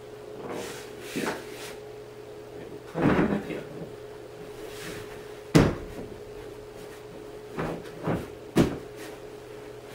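Hollow knocks and clacks of large plastic toy parts being handled and fitted together while a child's play structure is assembled. The loudest single knock comes about halfway through, and three quicker knocks follow near the end.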